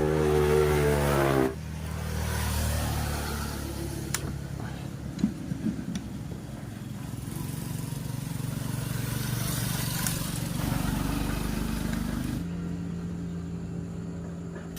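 A motor vehicle engine running steadily, opening with a loud pitched tone that stops about a second and a half in. A few sharp clicks come around four to six seconds in.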